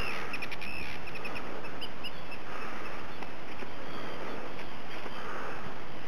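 A bird calling: a quick series of short, sharp calls in the first second, then a few sparser, fainter calls, over a steady hiss.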